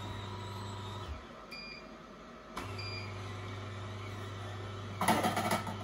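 Angel twin-gear juicer's motor running with a steady low hum. About a second in the hum stops, a short beep sounds, and about a second and a half later the motor starts again with another beep, as the juicer is switched between forward and reverse to clear its gears. Near the end, louder irregular noises start over the hum.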